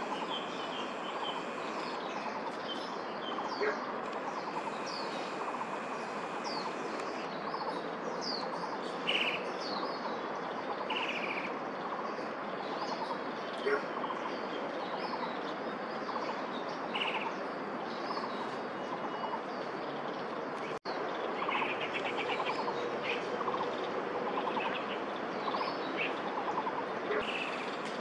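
Birds chirping and calling repeatedly, with a few short, harsh rattling calls that come more often in the second half, over a steady background din.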